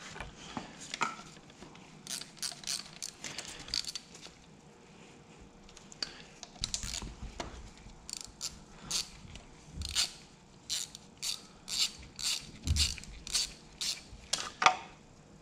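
Ratchet wrench with a socket clicking in short back-and-forth strokes while bolts holding the engine's fan bracket are loosened. The clicks are irregular at first, then come in a steady run of about two strokes a second in the second half, with one louder click near the end.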